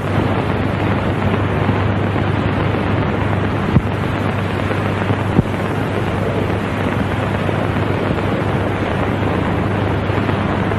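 Steady roar of a huge stadium crowd on an old, hissy match recording, with a low constant hum and two brief clicks about four and five and a half seconds in.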